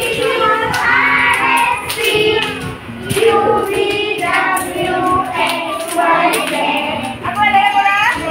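A group of children singing a song together, clapping their hands in time with it.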